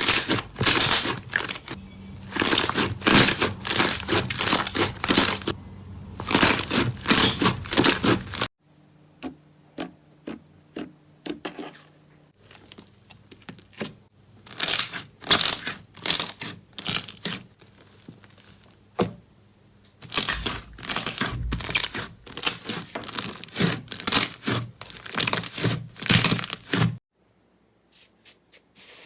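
Slime being squeezed and poked by hand, giving rapid crackling and popping in several short stretches that break off abruptly.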